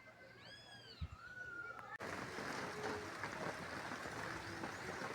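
Steady hiss of rain that starts abruptly about two seconds in. Before it, a few faint high calls rise and fall.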